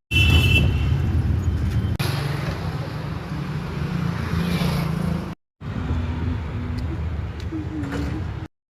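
Road vehicle noise: a steady low engine and road rumble, broken by a short gap about two thirds of the way through where the clips are cut together.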